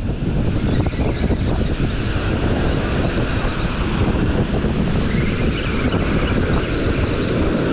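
Wind rumbling on the microphone over the steady wash of breaking surf.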